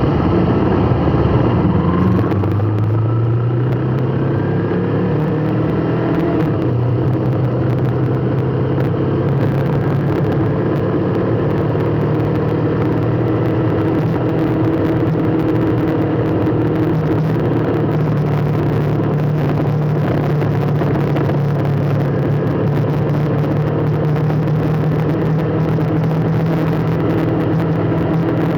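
A vehicle engine running steadily in slow traffic, its pitch rising a few times in the first seconds and then holding steady.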